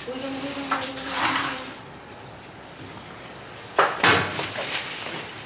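Glass door opening and people coming in with plastic grocery bags: a steady tone for the first second and a half, bag rustling, then two sharp knocks about four seconds in as the bags are handled and set down.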